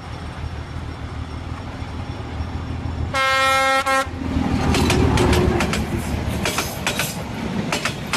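Train running with a steady low rumble, one horn blast of just under a second about three seconds in, then the clacking of wheels over rail joints.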